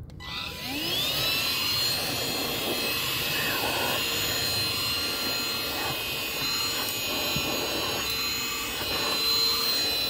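eufy HomeVac H11 cordless handheld vacuum switched on just after the start, its motor whine rising in pitch over about a second, then running steadily with a high whine over a rush of air.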